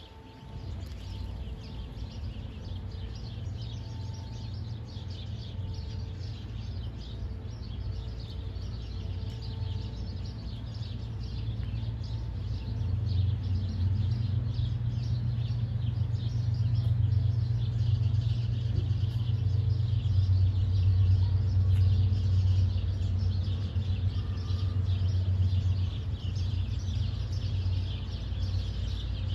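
Outdoor ambience of small birds chirping continuously over a low rumble, which grows louder from about halfway through and eases off near the end.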